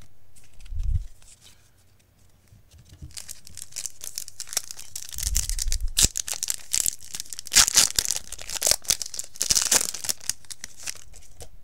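A foil Yu-Gi-Oh! booster pack wrapper being torn open by hand and crinkled, with a dense run of crackling tearing starting about three seconds in. There is a low thump about a second in.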